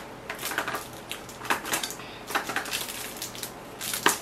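Plastic wrap on a perfume box crinkling and clicking as it is picked at by hand to get it open, in scattered small crackles with one sharp click near the end.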